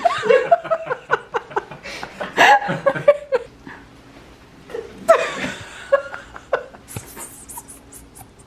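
Adults laughing and making playful vocal noises while mock-wrestling, in two stretches, with short clicks and rustles near the end.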